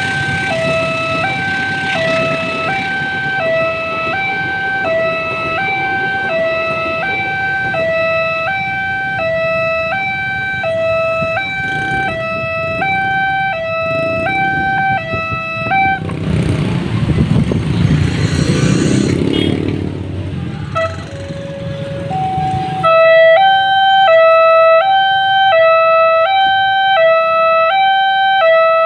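Railway level-crossing warning sirens sounding an electronic two-tone wail, a high and a low note swapping about once a second. Past the middle a rumbling rush of passing traffic covers it for several seconds, then a louder two-tone siren pattern with more stepped notes takes over.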